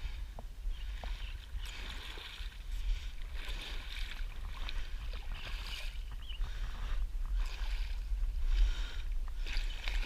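Water splashing and sloshing in repeated bursts about once a second as a hooked striped bass is brought in at the water's edge, over a low rumble of wind on the microphone.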